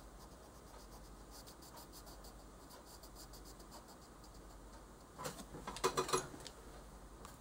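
Yellow colored pencil shading on coloring-book paper: faint, even scratchy strokes. About five seconds in, a short clatter of clicks and knocks, louder than the shading.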